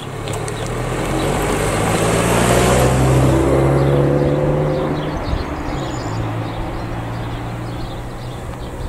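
A passenger car passes close by. Its engine and tyre noise rise to a peak about three seconds in, then fade, and the engine note drops as it goes away.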